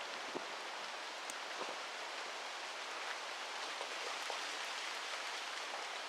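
Steady rain hiss with scattered individual drops ticking.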